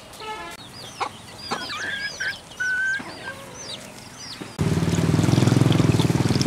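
Chickens calling, with a run of short high chirps. About four and a half seconds in, louder water starts pouring from a plastic jug into a clay bowl, splashing over a hand washing peeled potatoes.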